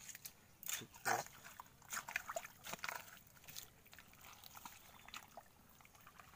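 Irregular wet clicks, squelches and small splashes of mangrove mud and muddy water being handled, the densest in the first few seconds and thinning out after.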